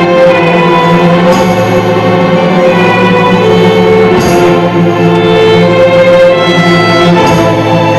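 An ensemble of violins playing a fiddle tune together in long bowed notes over a steady low accompaniment, with a short hiss-like accent about every three seconds.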